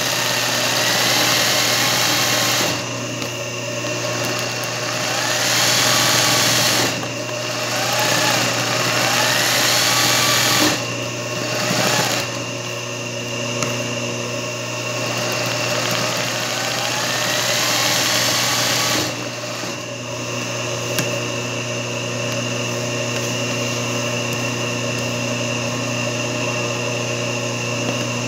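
Singer 20U industrial zigzag sewing machine stitching satin-stitch embroidery, running in spurts of a few seconds over a steady motor hum, then more evenly in the later part.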